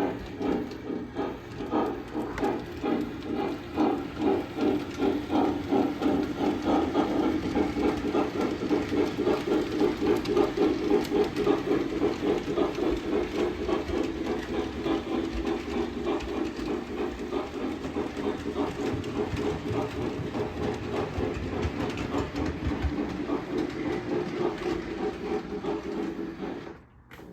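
Lionel O-scale cab forward 4294 model steam locomotive running on the track, its onboard sound system giving a steady rhythmic steam chuff with hiss. The sound cuts off about a second before the end.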